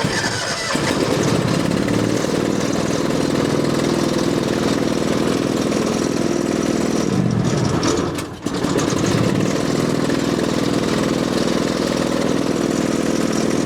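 Fuel-injected gasoline engine of an old skid steer, hard to start in the cold, suddenly running after cranking. It dips briefly a little past the middle, then picks up and runs steadily again.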